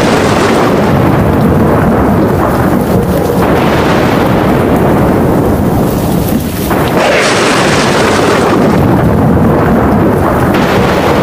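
Thunderstorm: heavy rain with rolling thunder that swells several times, and a brief lull about six and a half seconds in.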